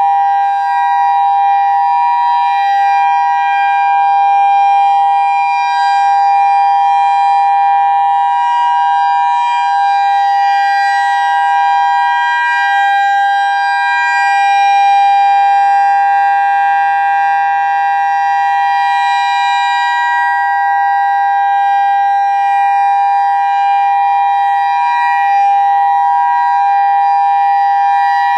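Federal Signal EOWS 612 electronic outdoor warning siren sounding its steady Alert signal: a loud, unwavering two-note chord held without a break, swelling and easing only slightly in loudness.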